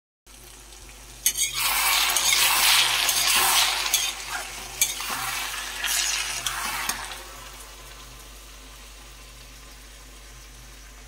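Chopped onion, potato and broad beans sizzling as they fry in hot oil, stirred with a metal spoon that clinks against the pan a few times. The sizzling is loud from about a second in and dies down to a faint hiss after about seven seconds.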